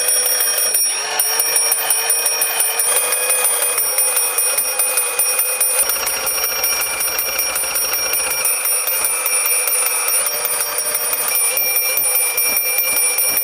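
A bell built into a knockoff remote-control Lightning McQueen toy car ringing without a break, a rapid, steady, annoying ringing.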